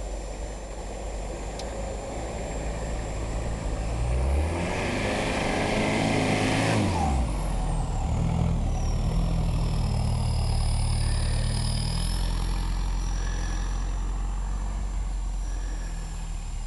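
Toyota Land Cruiser 70-series engine pulling through deep snow: the revs climb about four seconds in, tyres churn snow loudly as it passes close, with the pitch dropping about seven seconds in. It then runs steadily under load as it drives away, easing to a lower note about twelve seconds in.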